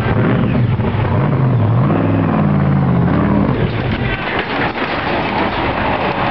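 Supercharged hot rod engine revving hard during a burnout: its pitch climbs and falls back over the first few seconds, then it carries on with a steadier, noisier sound.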